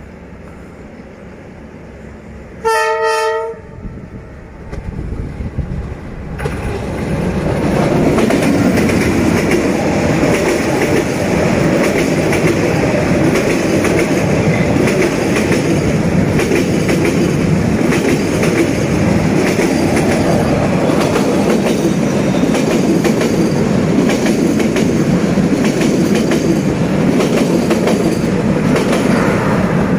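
Diesel-electric locomotive horn sounding one short blast about three seconds in. The train then grows louder from about six seconds and passes close by, a loud steady rumble with wheels clacking over the rail joints.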